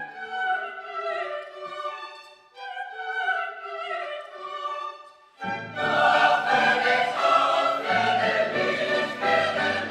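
Classical music for orchestra and voices. For the first half only a high line sounds, in two falling phrases; then the full ensemble comes in with the bass.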